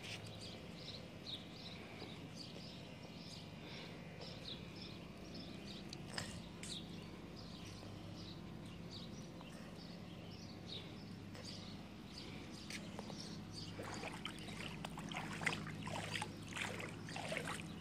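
Small birds chirping over and over over a faint steady low hum. In the last few seconds come faint splashing and sloshing sounds.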